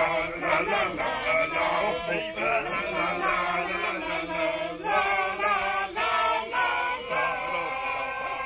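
Several voices singing together like a small choir, a chant-like closing song.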